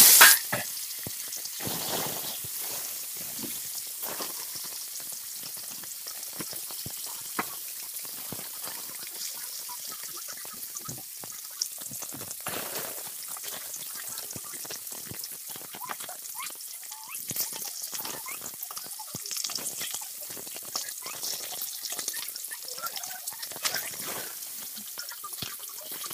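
Pieces of shol (snakehead) fish frying in hot mustard oil in an aluminium kadai: a steady sizzle with frequent small pops and crackles. The sizzle is loudest at the very start, as the fish hits the oil.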